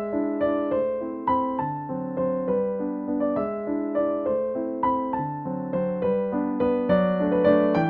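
Background music: a piano playing a gentle run of chords and single notes, each struck note dying away before the next.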